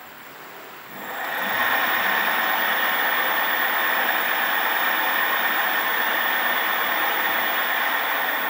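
Two hoverboard brushless hub motors spinning with no load. They speed up about a second in, then run steadily at high speed with a loud, even whir.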